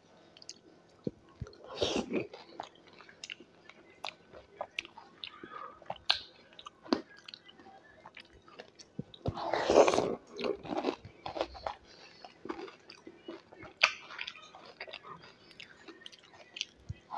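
Close-up mouth sounds of a person biting and chewing dahi golgappa, crisp puri shells filled and smothered in curd, with many small wet clicks and smacks. Louder bites come about two seconds in and again around the middle.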